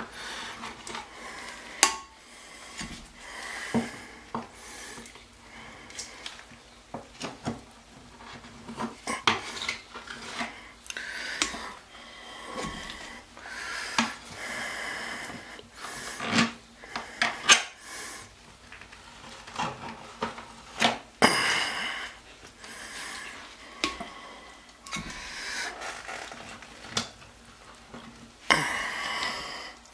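Metal hand scraper scraping old wax off a toilet closet flange and the wood floor around it, in irregular strokes with sharp clicks and clatters of the blade.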